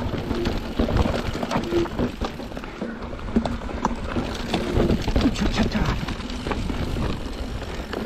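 Mountain bike riding fast down a dirt singletrack: steady wind rumble on the handlebar camera's microphone, with tyre noise and frequent clicks and rattles from the bike over the rough trail.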